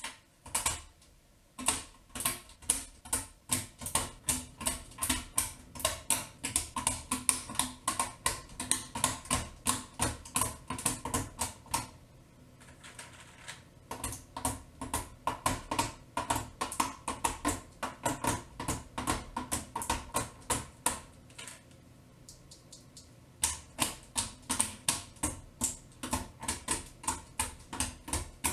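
Mechanical keyboard keys clicking in a steady run, about three to four clicks a second, pausing twice.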